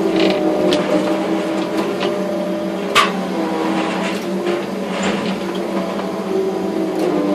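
Liebherr crane's engine and hydraulics running steadily, heard from inside the operator's cab, with a sharp click about three seconds in.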